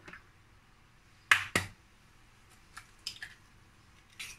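Egg tapped against the rim of a stainless steel bowl: two sharp cracks about a second and a half in, then a few fainter clicks as the shell is pulled open.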